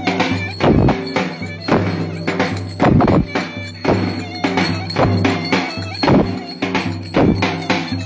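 Davul bass drum and clarinet playing a Turkish folk dance tune (oyun havası): heavy drum strokes in a steady rhythm under the clarinet's melody.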